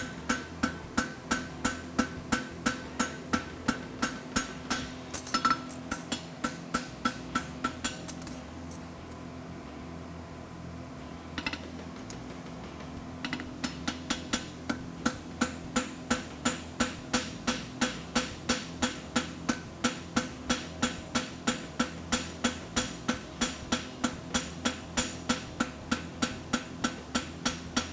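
Hand hammer striking a red-hot steel horseshoe on an anvil in a steady rhythm, about three blows a second, each with a short metallic ring. The hammering stops for about five seconds in the middle, broken by a single knock, then starts again.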